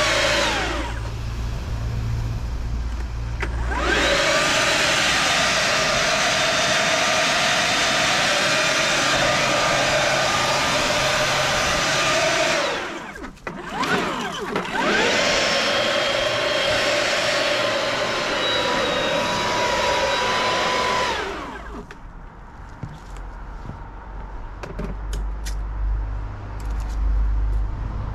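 STIHL BGA 85 cordless leaf blower running in spells, its fan noise and motor whine rising each time it starts and falling each time it stops. It winds down about a second in, starts again a few seconds later, cuts out briefly around the middle, runs again and stops a little past three-quarters of the way. Low rumble and a few light clicks follow.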